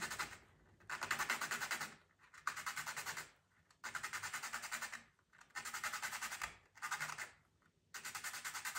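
Pastel pencil being sharpened: a gritty scraping in repeated strokes of about a second each, with short pauses between them.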